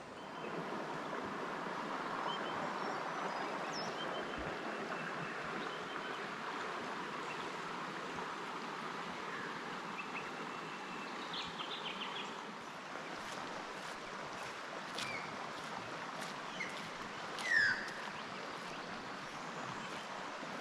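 River water flowing, a steady rush, with scattered short bird chirps above it; one louder, brief falling chirp comes a few seconds before the end.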